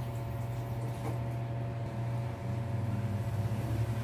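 A steady low machine hum with a few faint steady tones above it, under faint handling of wires on the fan stator.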